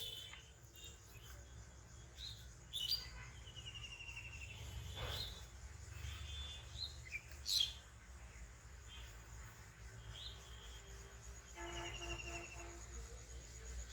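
Birds chirping and calling in short, scattered notes, with a couple of short trills, over a faint steady high insect whine.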